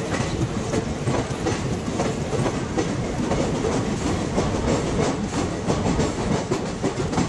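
Train wheels clattering over rail joints at speed: a steady clickety-clack with many quick clicks, from a track sound effect.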